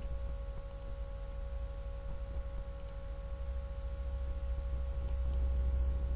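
Steady low hum with a faint steady tone above it, and a few faint clicks.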